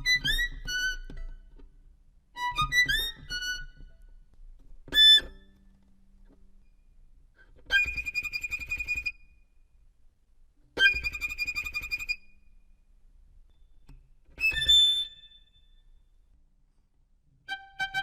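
Violin playing short sound-effect phrases separated by pauses. The first are quick sliding, swooping notes; the middle two are high held notes with fast tremolo bowing.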